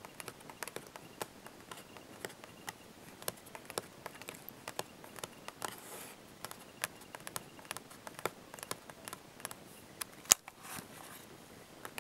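Fingernails tapping on a laptop's casing just above the keyboard: light, irregular clicks, with one sharper click about ten seconds in.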